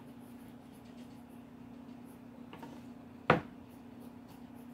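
Faint scratching of a Pilot Kakuno fountain pen's fine nib writing on sketch-pad paper, over a steady low hum. A single sharp tap about three seconds in is the loudest sound.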